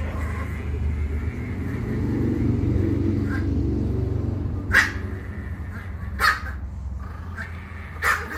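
Two chihuahuas growling steadily while playing tug-of-war over a toy, with three short sharp yips: about halfway through, a second and a half later, and near the end.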